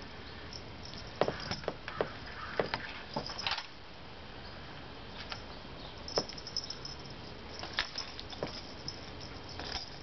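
Two house cats wrestling on a tile floor: scattered light taps and clicks from paws and claws, a busy run of them in the first few seconds, then fewer.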